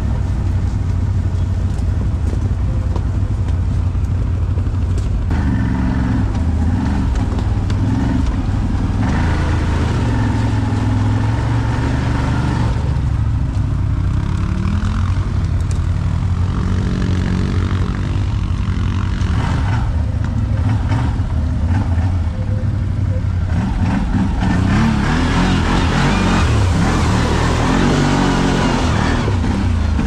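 ATV engine running as the quad rides along, its pitch rising and falling with the throttle, with a rushing noise that grows louder near the end.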